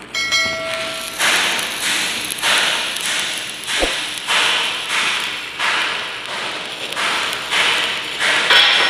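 Background music with a steady percussive beat, about two sharp hits a second. A short chime sounds for about the first second, from a subscribe-button animation.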